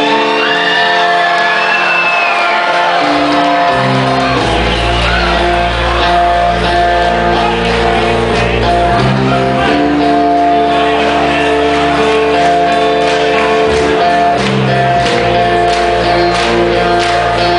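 Rock band playing live, with loud guitar chords ringing and the crowd whooping and shouting over the first few seconds. About four seconds in, the bass and drums come in and the full band plays on.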